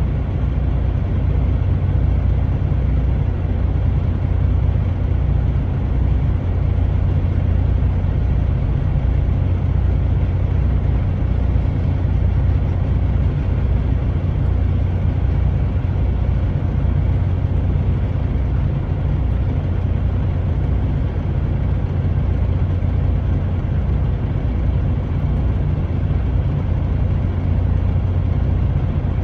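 Steady low rumble of a truck's engine and road noise heard from inside the moving cab, with a faint low throbbing underneath.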